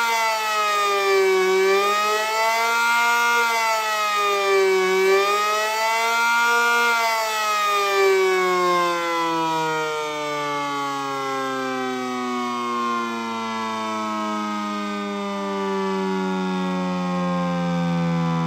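ACA Cyclone 125 electromechanical siren sounding: its pitch dips and climbs back about every three and a half seconds, then from about seven seconds in falls steadily as the siren winds down.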